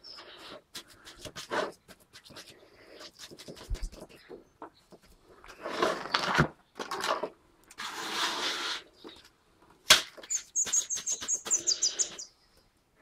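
Irregular gritty scraping and rustling, with a sharp click just before ten seconds in. Then comes a small bird's quick run of repeated high chirps, lasting a second or two.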